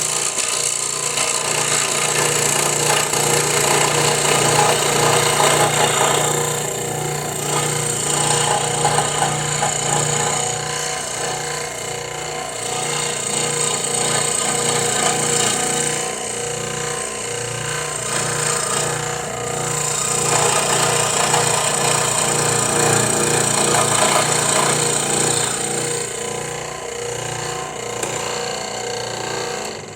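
Electric scroll saw running, its blade stroking up and down through a wooden workpiece. The cutting noise swells and eases as the piece is fed along the line, over a steady motor hum.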